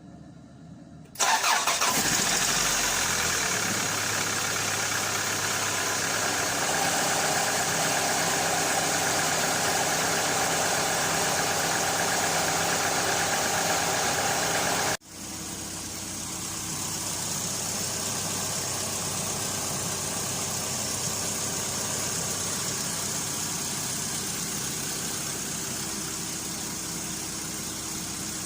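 MG ZS engine cranking and catching about a second in, then running steadily, on its first start after a head gasket replacement. About halfway through the sound drops sharply and the engine carries on running steadily, quieter.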